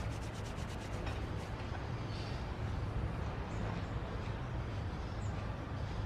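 Wind buffeting the microphone: a steady rumbling noise with a hiss over it.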